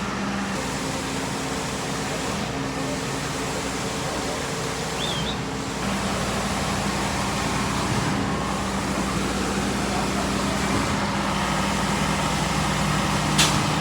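Engine of the concrete delivery equipment running at a steady speed, with a sharp click near the end.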